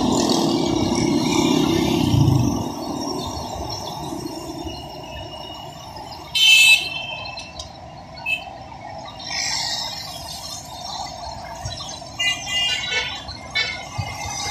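Road traffic going past: the steady hum of car, motorcycle and auto-rickshaw engines and tyres, loudest in the first couple of seconds as vehicles pass close. A short, loud high-pitched tone cuts through about six seconds in, and further short high tones come near the end.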